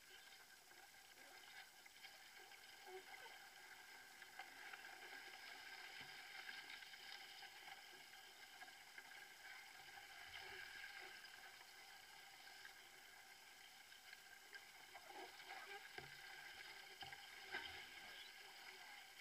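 Faint water sounds of a canoe being paddled on a lake: a steady swish of water along the hull, with a few soft paddle splashes and knocks near the end.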